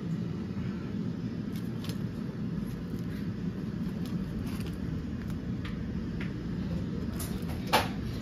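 Steady low hum of a fan-driven kitchen appliance running, with a few light clicks and one sharper click near the end.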